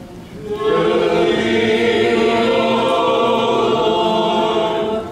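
Orthodox church choir singing a short a cappella liturgical response in several-part harmony, one held chord lasting about four seconds.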